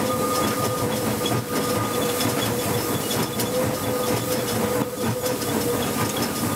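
Steam locomotive Pennsylvania Railroad 643 rolling along the track, heard from inside its cab: a steady running rumble with irregular clicks of the wheels over rail joints and a steady high ringing tone on top.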